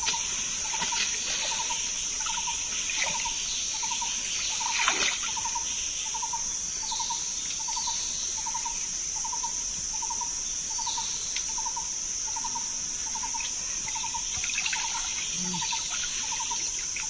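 Forest-stream ambience: a steady high insect drone with a short pulsed call repeating about three times every two seconds, over faint trickling water. A single brief knock about five seconds in.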